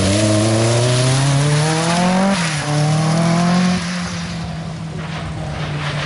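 Peugeot 205 rally car accelerating hard out of a hairpin: engine revs climb, drop with a quick upshift about two seconds in, climb again, then the driver lifts off shortly before halfway and the engine sound falls away quieter as the car moves off.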